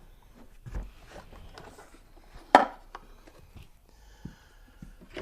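Handling noises of parts packed inside a new shop vac's plastic canister being moved about, scattered small clicks and rustles with one sharp knock about two and a half seconds in.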